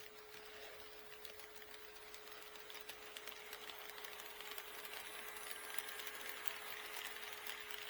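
HO scale model train running on KATO Unitrack: a motor whir with rapid fine clicking of wheels on the rails, growing louder from about three seconds in as the train approaches. A steady tone runs underneath.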